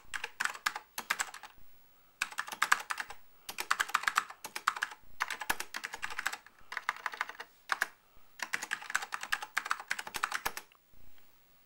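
Typing on an Apple II keyboard: quick runs of key clicks in about six bursts with short pauses between. The typing stops about a second before the end.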